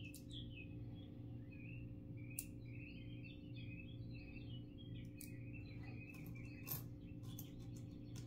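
Faint bird chirps in the background through the first five seconds or so, over a steady low hum. A few light clicks come through here and there.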